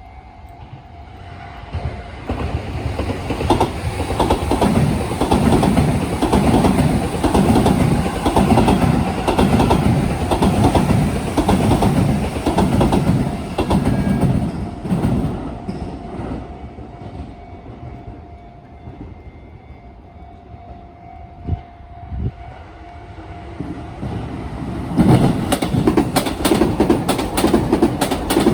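A Sotetsu electric train passing over turnout rail joints, its wheels beating out a loud, regular clickety-clack. The train fades into a quieter spell, then dense, sharp joint clicks start again near the end as another train arrives.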